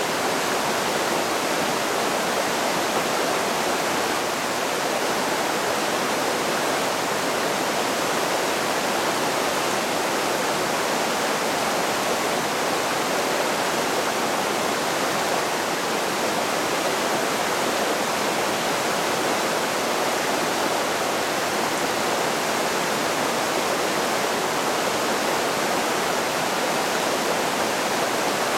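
Shallow mountain creek rushing over boulders and rocks in small rapids: a steady, even rush of white water.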